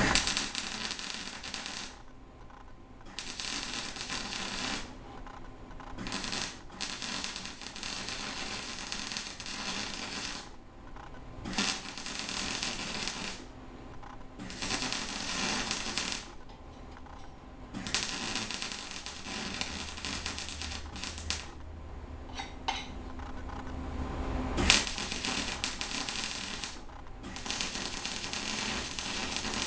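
Wire-feed (MIG) welder arc crackling as short beads are laid on 3-inch stainless steel exhaust pipe. The arc strikes and stops about ten times, each weld lasting one to four seconds.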